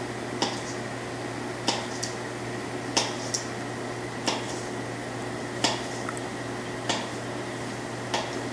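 A knife cutting butter, tapping down onto the board in sharp, evenly spaced strokes about once every second and a quarter, over a steady electrical hum.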